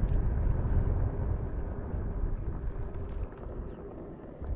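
Wind rushing over the microphone while riding, a steady low rumble that fades toward the end.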